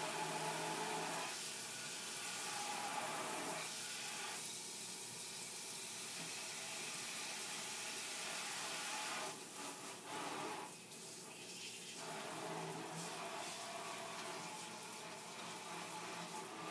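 Kitchen sink faucet running, water splashing into the sink. The splashing changes in tone several times as things are moved under the stream.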